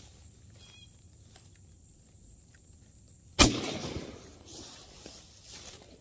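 A single 12-gauge shotgun shot about three and a half seconds in, sudden and loud, dying away over about a second. It was fired at a dove flying over.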